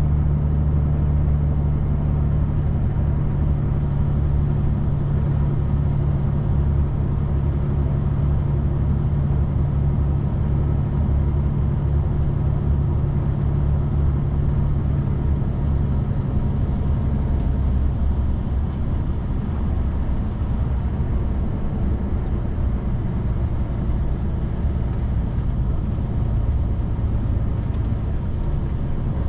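Steady engine and tyre noise of a vehicle driving on a rainy road, a low hum with a constant drone. About two-thirds of the way through, the higher engine tone fades and the sound drops a little, as if the vehicle eases off.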